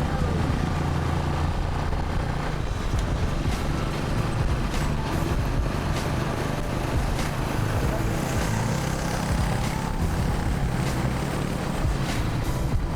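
A vehicle's engine running steadily, a continuous low rumble with noise over it.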